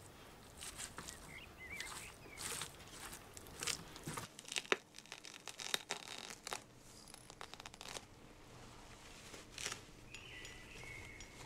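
Close handling noises: a run of crinkling, tearing and sharp clicking sounds, most dense in the first half, with a brief squeak about ten seconds in.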